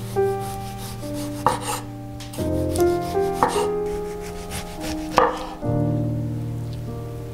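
A cleaver-style kitchen knife slicing through a tomato and striking a wooden cutting board, about five separate cuts, over background music with sustained chords.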